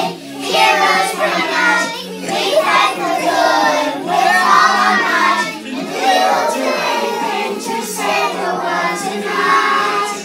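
A group of young children singing together in unison, in phrases about two seconds long, with music playing under them.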